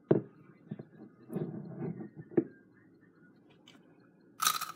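A rolled Takis tortilla chip dipped in hot sauce bitten and chewed: loud, crisp crunches starting near the end. Before them come a few light knocks and a soft rustle from handling the chip and bottle.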